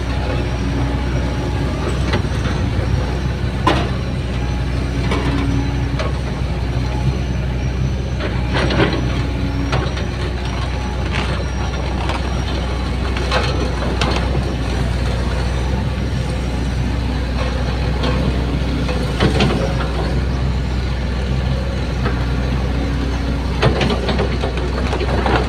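Kobelco SK75 excavator's diesel engine running steadily, with a sharp knock every few seconds and short low whines coming and going.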